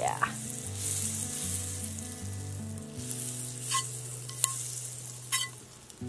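Bread frying in melted butter in a hot pan: a steady sizzle, with three sharp pops in the second half.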